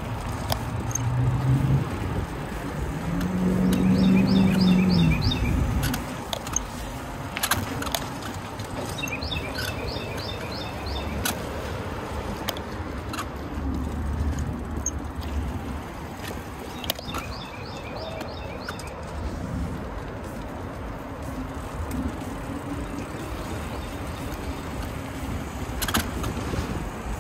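Bicycle riding along a paved trail: steady tyre rumble and wind on the microphone, with occasional sharp clicks. A low drone swells briefly about four seconds in, and a bird's quick run of chirping notes comes three times.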